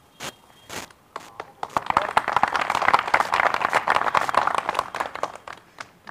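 A group of people clapping. It starts with a few scattered claps, swells into steady applause after about a second and a half, and dies away near the end.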